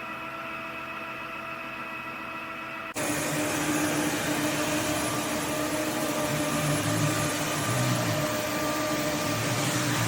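Roborock F25 Ace cordless wet-dry vacuum mop running with a steady whine, then about three seconds in it abruptly gets much louder with a full rushing sound, which holds steady.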